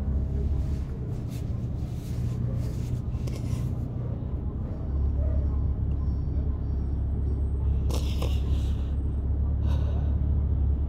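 Low, steady rumble of a car's cabin on the move, with a woman's crying sniffs and shaky breaths in the first few seconds and another sharp sniff about eight seconds in.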